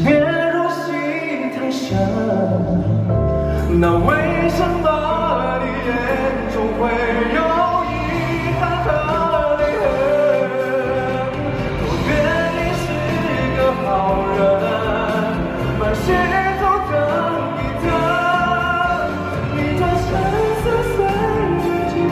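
A song playing: a singing voice over instrumental backing.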